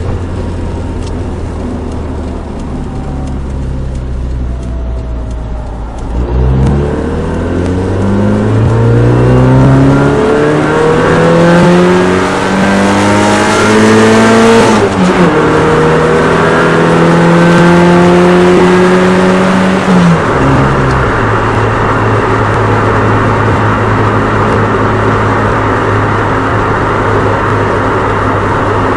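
Nissan Micra 1.3-litre four-cylinder petrol engine pulling away: a steady low note for about six seconds, then revs climbing, a gear change about halfway, a second climb, and a drop to a steady low drone over road noise near the end.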